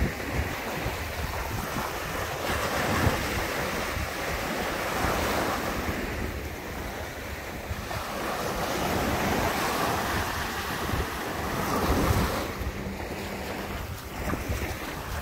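Ocean surf: waves rolling in and washing back, the wash swelling and fading every few seconds, with wind rumbling on the microphone.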